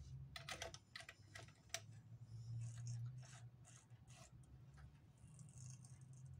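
Faint small clicks and metallic taps from a sewing machine's hook and needle mechanism being handled and adjusted by hand, while the hook-to-needle clearance is set. The clicks are thickest in the first two seconds, over a low steady hum.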